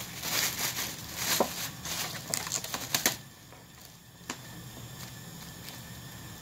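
Thin plastic carrier bags rustling and crinkling as a cardboard food box is pulled out and handled, with a run of sharp clicks and snaps. The rustling stops about three seconds in, leaving one light tap against quiet room tone.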